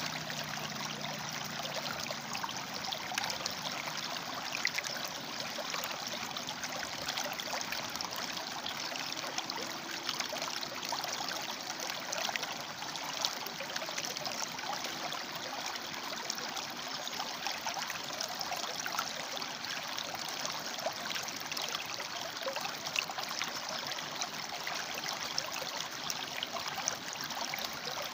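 River water flowing and splashing over rocks: a steady rush with fine trickling and gurgling.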